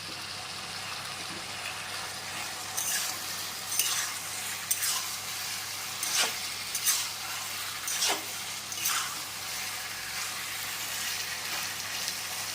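Boiled ghatkol stalks in spice paste sizzling in a pan over a turned-up gas flame, cooking off their water, with a spatula scraping against the pan about seven times in the middle of the stretch.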